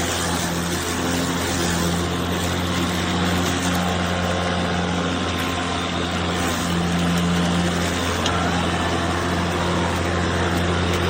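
Greenworks 40V cordless electric lawn mower running steadily as it is pushed through grass: a constant low hum from the motor and spinning blade over an even rushing hiss.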